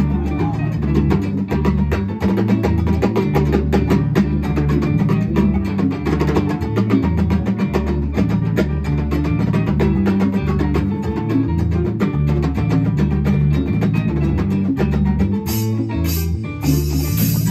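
Latin band playing live: a rhythmic bass line with guitar, drum kit and percussion. There is a short break about sixteen seconds in before the band comes back in.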